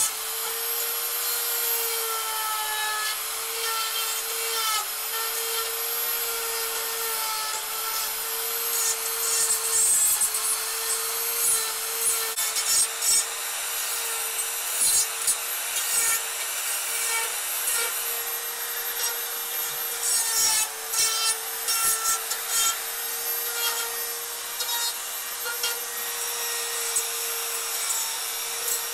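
Electric die grinder with a Saburrtooth carbide taper bit running with a steady whine while grinding and texturing carved wood. The bit rasps against the wood in uneven spells, loudest and choppiest through the middle.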